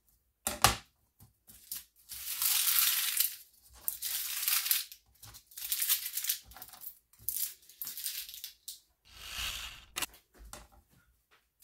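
Dry, papery onion skin being peeled off by hand, crackling in a run of short rustling bursts, with a sharp knock near the start.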